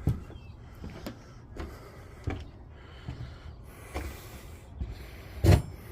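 A series of irregular knocks and thumps, about seven in all, the loudest a little before the end.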